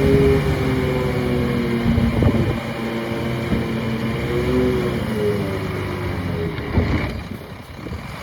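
Heavy diesel engine of earthmoving machinery running under load, its pitch rising and falling. The sound drops away near the end.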